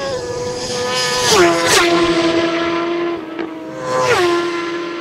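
Superbike racing motorcycles passing flat out at close range, each engine note dropping sharply in pitch as it goes by: two bikes in quick succession about a second and a half in, and another about four seconds in.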